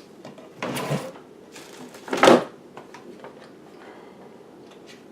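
Handling noise from working the old power supply out of a PC case: a scrape about half a second in, a louder scrape just after two seconds in, then light clicks.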